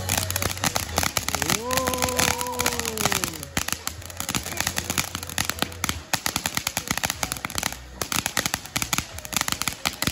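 Ground fountain firework spraying sparks with a dense, irregular crackle of rapid small pops.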